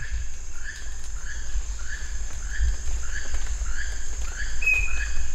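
Rainforest ambience: a short chirping call repeated about twice a second, a steady high insect drone, and a drawn-out whistled bird note near the end, over a low rumble on the microphone.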